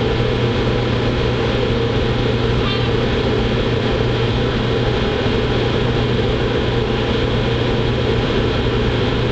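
Ship's diesel machinery running with a steady, unchanging low drone, heard on board the vessel.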